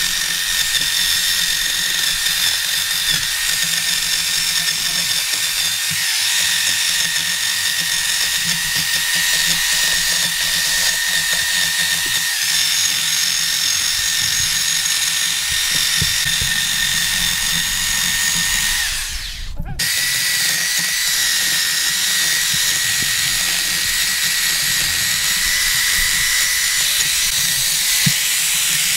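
Corded electric drill spinning a sanding disc against weathered stump wood: a steady high motor whine with the rasp of the abrasive on the wood. It cuts out briefly about two-thirds of the way through, then starts again.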